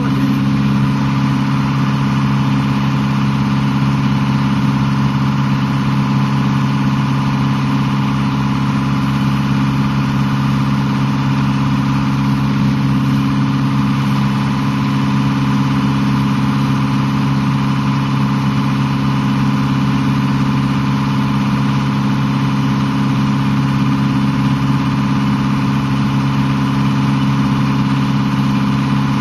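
A sailboat's auxiliary engine running at a steady speed: a constant low drone that does not change in pitch or loudness.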